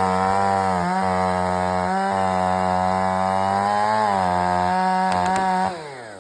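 Stihl 500i chainsaw's fuel-injected two-stroke engine running steadily with a few brief dips in speed, then shut off near the end, its pitch falling quickly as it winds down.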